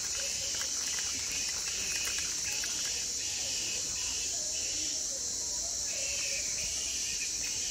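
Insect chorus: a steady high-pitched buzz with a second, lower insect trill pulsing on and off about twice a second.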